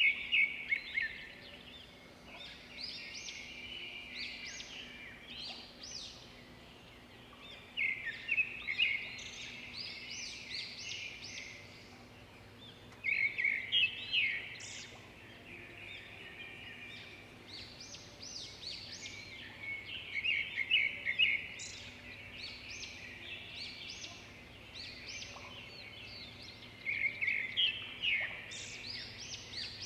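Songbird singing: a rapid burst of chirps and trills every six or seven seconds, over a faint steady hum.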